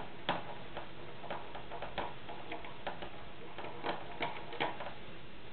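A screwdriver backing the action slide hook screw out of a Winchester 1897 shotgun's steel receiver, giving a dozen or so irregular small metal clicks.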